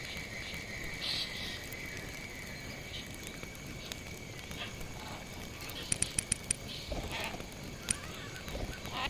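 Outdoor rural ambience: a steady high drone with scattered short animal calls, and a quick run of about five sharp clicks around six seconds in.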